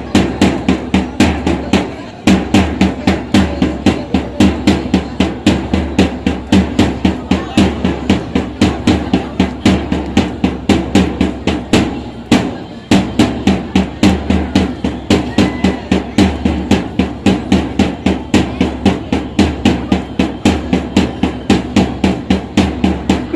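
Dance accompaniment music driven by a fast, steady drumbeat at about three to four beats a second, with pitched accompaniment beneath it; the beat breaks off briefly twice.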